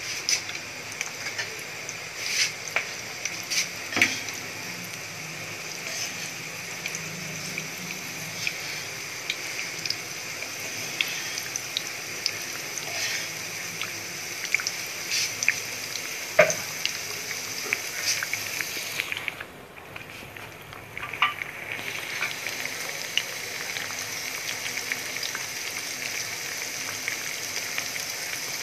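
Potato rings frying in hot ghee in a pan: a steady sizzle with scattered sharp crackles and clicks. The sizzle briefly drops and turns duller about twenty seconds in.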